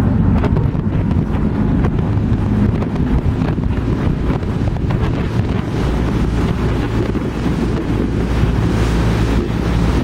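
Wind buffeting the microphone on a moving boat, over a low steady rumble of the boat's engine and water rushing past the hull.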